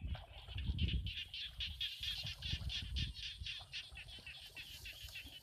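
An animal call: a long run of short, high chirps repeated evenly about seven times a second. A low rumble sounds in the first second.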